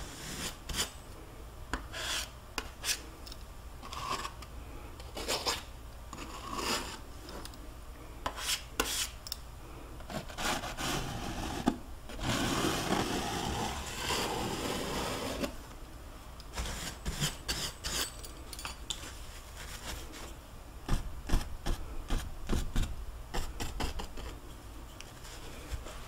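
Palette knife scraping paint across a stretched canvas: scattered short scrapes and taps, with one continuous scrape of about three seconds just past the middle.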